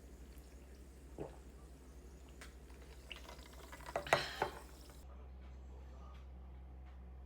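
Light clinks and knocks of dishes with a liquid sound, the loudest cluster about four seconds in, over a low steady hum; after about five seconds only the hum remains.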